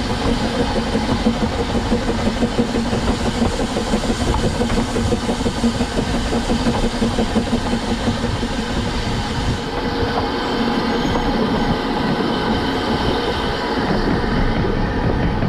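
The Double Fairlie steam locomotive David Lloyd George, heard from close on the engine, working as it pulls a train away from a station. The running and wheels on the rails go on in a continuous, unsteady rattle, with a steady hiss-like tone in the first half.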